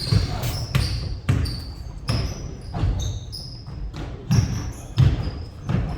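Basketballs bouncing on a hard gym floor, several irregular thuds about every second, with short high squeaks of shoes on the court.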